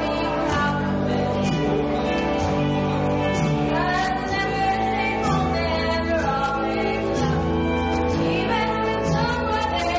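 A woman singing a song solo, with instrumental accompaniment. The melody holds long notes with sliding pitch over a steady bass line.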